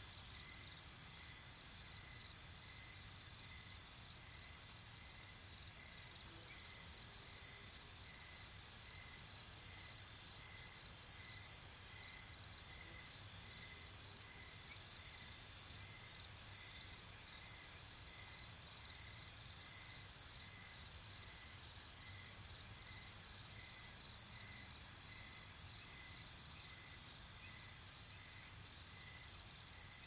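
Faint night chorus of crickets: a steady high trill, with a lower short chirp repeating evenly about one and a half times a second.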